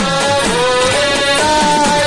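Loud devotional Venkateswara song music: a held melody line that slides between notes, over a repeating beat.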